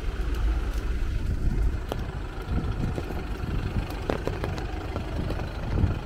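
Low, steady rumble of road traffic, with a few faint clicks scattered through.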